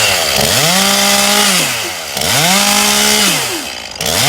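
Two-stroke chainsaw revved in repeated bursts, about three times, its engine pitch climbing, holding high for about a second, then dropping back.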